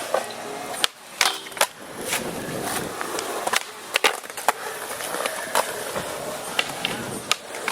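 Skateboard wheels rolling steadily across the park surface, broken by about nine sharp clacks of the board and trucks striking the ground.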